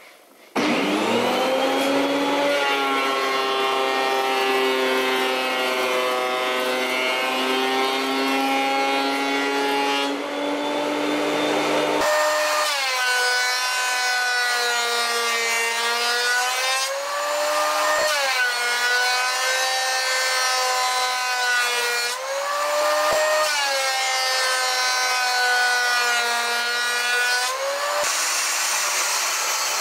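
Benchtop thickness planer starting with a rising whine, then running steadily. In later passes the motor's pitch dips and recovers several times as boards feed through the cutterhead under load.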